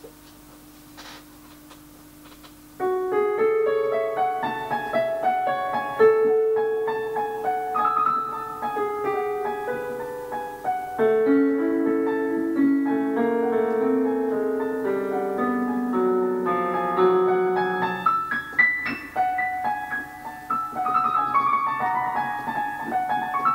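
Solo piano improvisation: single notes and chords in a free, unhurried melody, starting about three seconds in after a faint steady hum.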